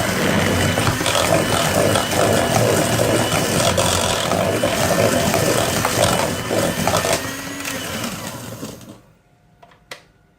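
Electric mixer beating cake batter, running steadily, then switched off about nine seconds in, followed by a couple of light knocks.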